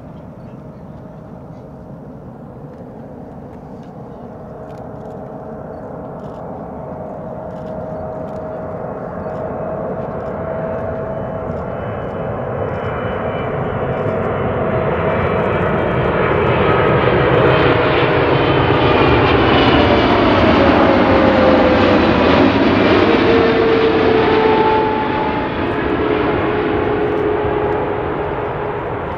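Jet engine noise from a Boeing 777 freighter's two GE90 turbofans on landing approach. It grows steadily louder as the aircraft nears and passes close by, with an engine whine that drops in pitch as it goes past, then starts to fade near the end.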